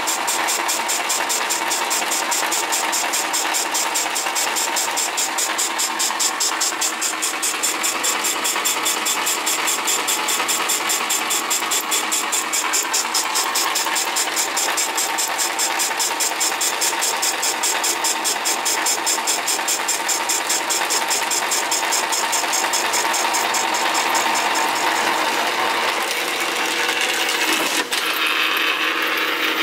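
Old Atlas metal lathe running with its cutting tool turning a cast aluminium flywheel: a steady machine whir with a fast, even pulsing. The sound changes near the end, with a single sharp click as a lever on the lathe's quick-change gearbox is worked.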